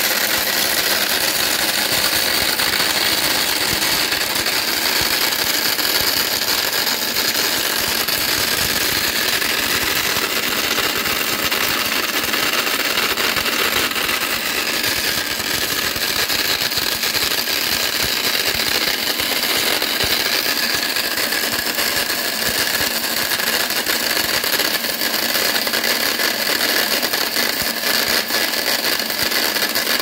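24-volt battery-powered DC mixer grinder running steadily, its steel blade grinding a dry powder in a small stainless steel jar: a steady high motor whine over an even hiss.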